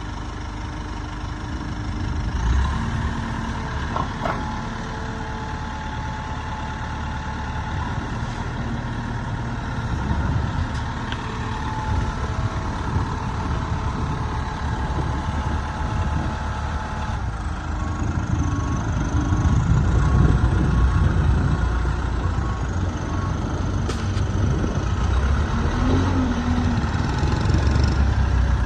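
Diesel engine of a Terex/Fermec 760 backhoe loader running steadily, growing louder in the second half, with a few sharp knocks.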